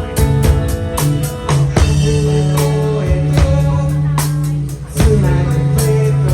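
Live rock band playing: drum kit hits over held bass notes and guitar.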